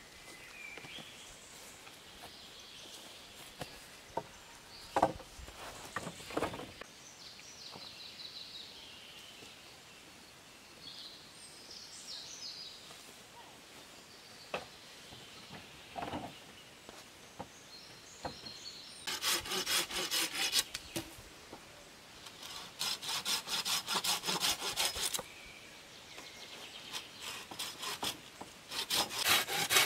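Hand saw cutting a green wooden pole in three runs of rapid back-and-forth strokes in the second half, the last starting near the end. Earlier, a few sharp knocks of wooden poles striking each other.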